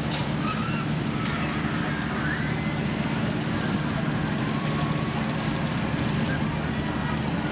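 Steady low hum of funfair ride machinery and generators, with faint distant voices over it.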